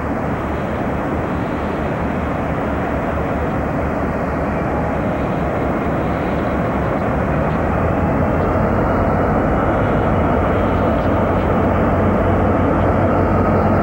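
Several diesel freight locomotives working together at the head of a train, their engines' steady drone slowly growing louder as they approach, with a low hum strengthening in the second half.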